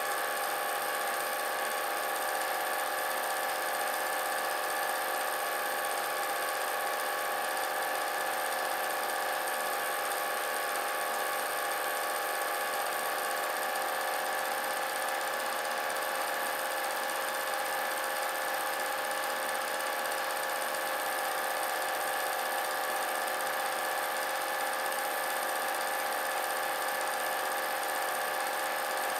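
Film projector running: a steady mechanical whir of its motor and mechanism.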